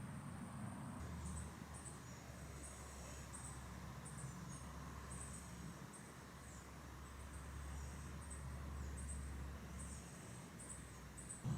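Crickets chirping: faint, short, very high chirps in irregular groups over a low steady hum.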